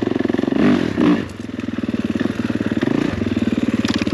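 Kawasaki motocross bike's engine running with an even, rapid pulse, with two short louder bursts of throttle about a second in, followed by a brief easing off.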